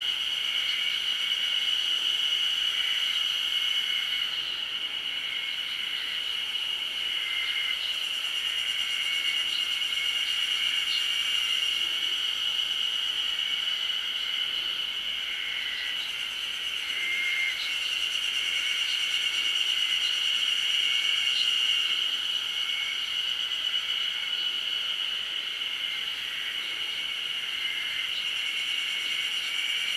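A steady, high-pitched drone of insects, unbroken and even in pitch, with a few faint short chirps now and then over it.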